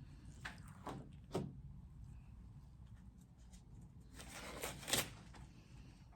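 Faint handling noises of phones being moved and set down: a few light taps in the first second and a half, then a short rustle ending in a tap about five seconds in.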